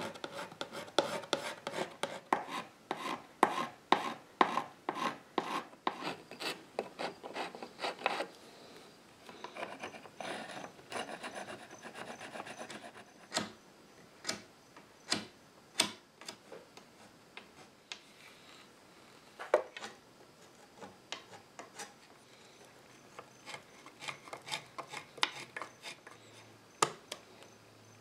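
Hand scraper scraping old glue off wooden chair joints. It starts with quick repeated strokes for about eight seconds, then turns into slower, scattered scrapes and sharp clicks.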